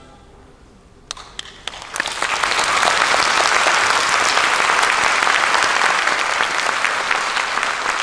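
A brief hush after the orchestra's final note, a few scattered claps about a second in, then the concert-hall audience breaks into full, sustained applause.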